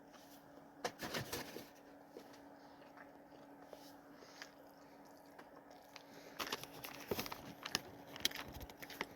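Faint chewing of a Burger King Mexican Street Corn Whopper, with a short run of crunching about a second in and a cluster of small crackling bites in the last few seconds, over a faint steady hum.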